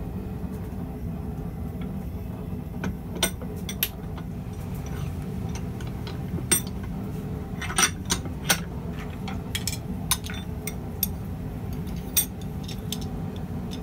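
Scattered sharp metallic clinks and taps from steel tools and tubing being handled at the forge, over a steady low hum.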